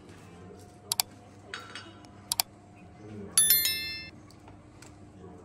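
Dishes and cutlery clinking: a few sharp taps about one and two seconds in, then a louder ringing clink about three seconds in that dies away within a second.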